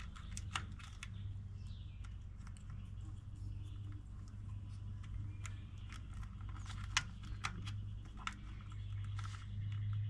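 Scattered small clicks and rustles of wires and a plastic quick-disconnect connector being handled and plugged together at a 12-volt battery, over a low steady hum.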